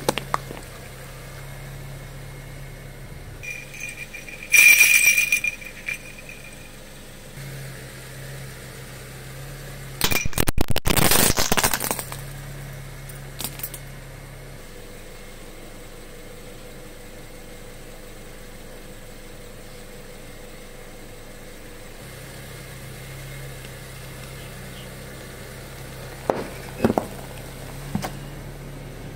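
A car's engine idling steadily as its tyre rolls slowly over and crushes small objects on concrete. A loud high squeal comes about five seconds in, and a dense crackle of hard plastic shattering comes about ten to twelve seconds in. A few sharp cracks follow near the end.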